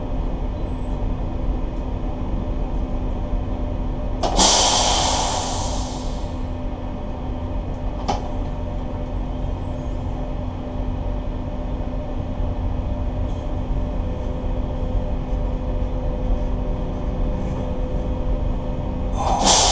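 Steady low drone of a boat's engines with a constant hum. About four seconds in and again near the end comes a burst of hiss lasting about two seconds, and there is a single sharp click about eight seconds in.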